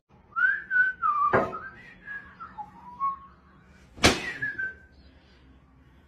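Someone whistling, a single wavering line that glides up and down for about three seconds, with a sharp click partway through. About four seconds in, a loud crack of a towel snapped like a whip, followed by a brief high whistled note.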